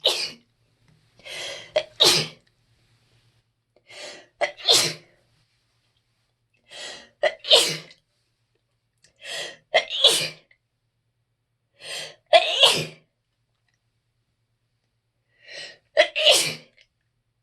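A person sneezing over and over from allergies: six sneezes in quick succession, about two and a half seconds apart, each with a quieter in-breath just before it.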